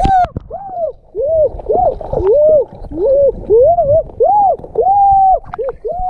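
A wordless melody of short notes that each slide up and back down, ending on a longer held note, like a bamboo flute or humming. Hands splash once in shallow water at the very start.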